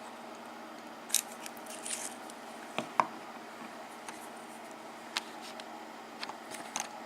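Scattered sharp clicks and small taps from a Kwikset pin-tumbler lock cylinder being handled and taken apart, against a steady faint hiss. The loudest click comes about three seconds in.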